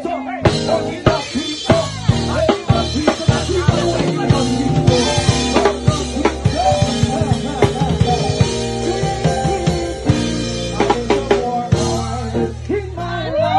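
Dance music with a steady drum-kit beat and a bass line.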